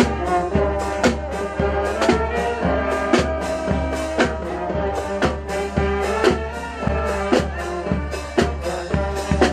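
School marching band playing on the march: sousaphones and other brass hold sustained notes over a steady drum beat of about two strokes a second.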